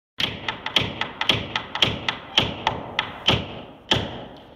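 A syncopated run of sharp percussion strikes, some coming in quick pairs, each with a short ringing after it; the last and loudest-ringing strike comes about four seconds in and dies away.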